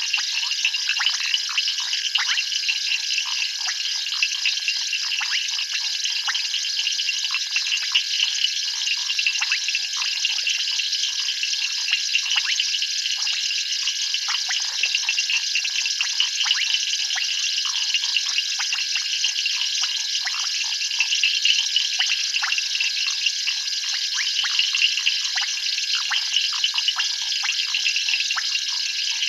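Dense night chorus of frogs and insects: a steady shrill trilling laced with many quick clicks and chirps.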